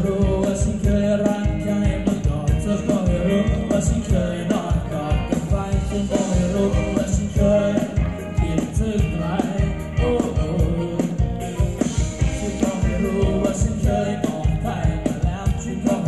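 Live band playing upbeat Thai ramwong dance music, with a singer over a steady, quick drum beat.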